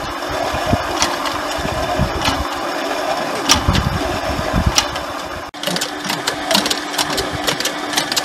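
Well water pump running with a steady motor hum and rattle, with a few sharp metallic clicks.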